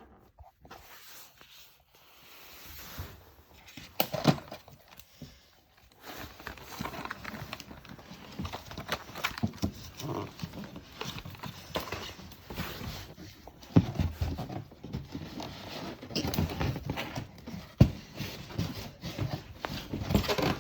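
A coffee machine being worked out of its cardboard box and foam packing: scraping, rustling and clattering, with a few sharp knocks standing out. It is sparse for the first few seconds, then busier.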